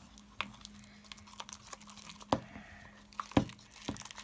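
Spoon stirring glue-and-detergent slime in a bowl as it thickens: irregular sticky clicks and scrapes, with two louder knocks of the spoon against the bowl.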